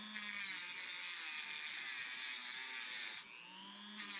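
Small high-speed electric power tool running with a steady whir; about three seconds in it eases off and spins back up with a rising whine.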